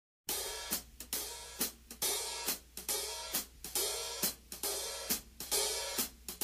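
A drum kit's cymbal played alone in a steady rhythm of about two to three strokes a second, starting after a moment of silence: the opening bars of a blues band's recorded song.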